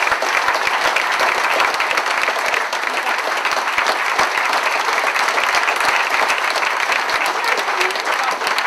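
A theatre audience and cast applauding steadily, the dense clapping of many hands.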